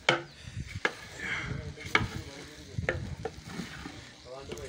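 A long cooking paddle stirring rice in a large aluminium pot, knocking and scraping against the pot several times, over a steady sizzle of the rice frying.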